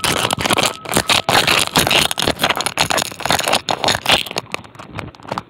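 Busy scraping and crackling handling noise: many small clicks and rubs close to the microphone.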